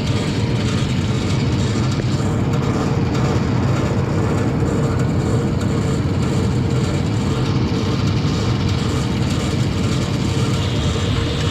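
LS tractor's diesel engine running steadily under throttle, a low rumble with a steady hum above it, as it drives a PTO winch pulling a tree.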